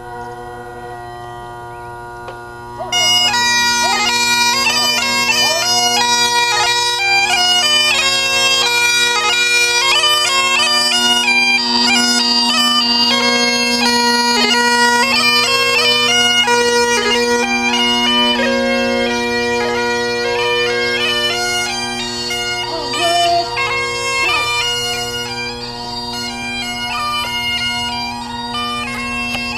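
Highland bagpipes played: the steady drones sound first, and about three seconds in the chanter starts a tune over them.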